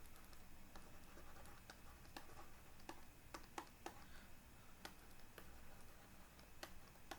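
Near silence: room tone with faint, irregularly spaced clicks and ticks, about a dozen in all.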